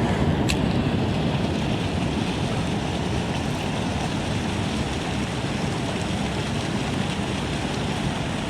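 Steady rush of water at a creek dam, with a brief sharp click about half a second in.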